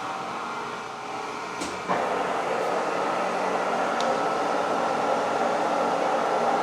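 Old Kearney & Trecker horizontal milling machine running with a 3-inch boring head on its horizontal spindle; about two seconds in the boring tool goes back into the cut and a louder, steady cutting noise sets in, the counterbore being fed by hand.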